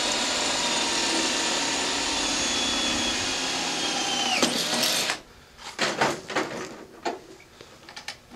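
Cordless drill running steadily as it bores a hole through a metal pipe clamped in a vise. The motor's pitch drops and it stops about five seconds in. A few knocks and clatters of handling follow.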